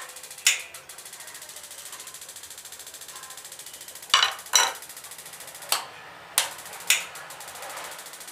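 About six sharp clicks and knocks of a steel screwdriver being handled and set down on a stone worktop, a close pair about four seconds in, over a faint steady background.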